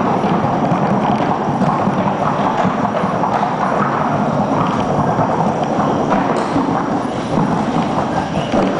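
A Paso Fino horse's hooves beating a rapid, even patter on a hard track as it is ridden in its fine gait.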